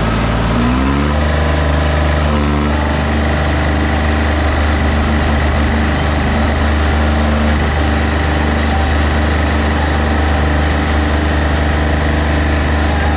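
Two tractor diesel engines, a Preet 3549 and a Sonalika DI 35, pulling at full throttle against each other in a chained tug-of-war. The engines rev up about a second in and then hold a steady, heavy note under full load.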